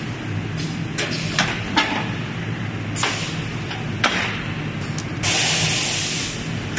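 Automatic stretch film rewinder running with a steady motor hum, with several sharp knocks as a new paper core is dropped and set in place. About five seconds in, a hiss of compressed air from its pneumatic parts lasts about a second.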